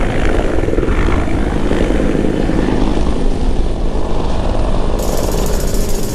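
CH-146 Griffon search-and-rescue helicopter flying low overhead, its rotor and turbine making a steady loud noise mixed with the rush of its downwash over the water, as it passes and moves away.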